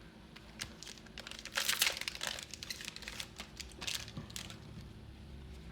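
A Final Fantasy TCG Opus X booster pack wrapper crinkling and tearing as the pack is opened and handled, in irregular bursts that are thickest in the middle.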